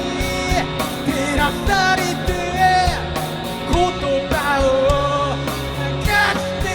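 Rock band playing live: a sung vocal melody over guitar and a steady beat of drum hits.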